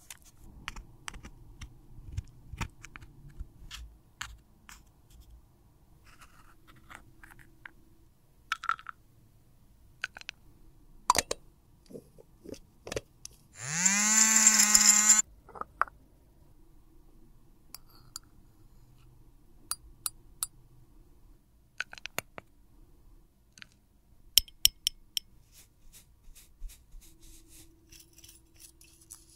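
Small tools and cosmetic containers clicking, tapping and scraping lightly, handled as makeup is worked. About halfway through, a small electric motor spins up with a rising whirr, runs steadily for about two seconds and cuts off suddenly.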